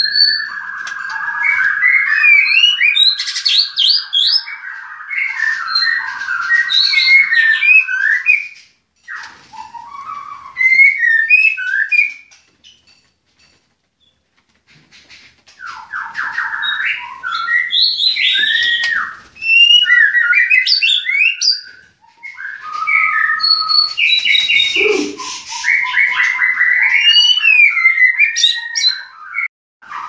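White-rumped shama (murai batu) singing loud, varied phrases of whistles and trills. The song comes in several bouts and stops for about three seconds around the middle before starting again.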